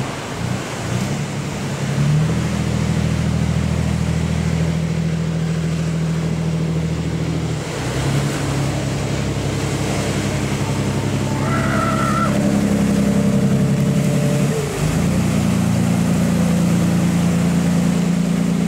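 Fishing boat's inboard diesel engine running hard as it drives through breaking surf, its note rising about two seconds in and dipping briefly near the end before picking up again, over the rush of waves.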